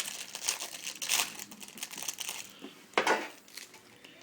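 Yu-Gi-Oh booster pack's foil wrapper crinkling as it is torn open and handled, with a louder rustle at the start and another about three seconds in.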